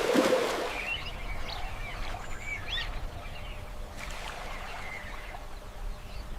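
Wild birds chirping: a scatter of short rising and falling chirps, most in the first three seconds and one more faintly later, over a steady low rumble of outdoor ambience.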